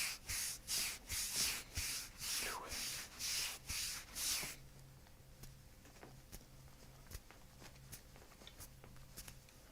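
Hands rubbing briskly back and forth over the patient's back, about three strokes a second, stopping about four and a half seconds in. After that only faint scattered ticks and a low hum remain.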